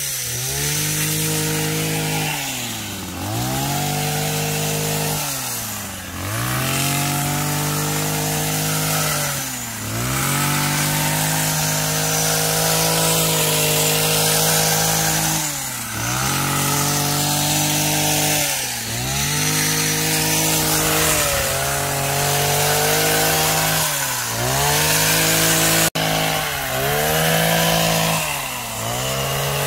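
Petrol hedge trimmer (pruning machine) running at high revs. The throttle is let off and opened again every few seconds, so the engine note drops briefly toward idle and climbs back between cuts.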